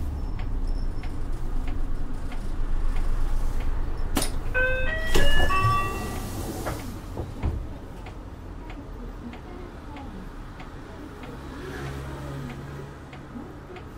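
Isuzu Erga city bus idling on its 6HK1-TCC diesel with an indicator relay ticking about twice a second. About four seconds in, the bus's distinctive door chime plays a short run of notes, then the pneumatic door works with a knock and a hiss of air. The engine idles on more quietly afterwards.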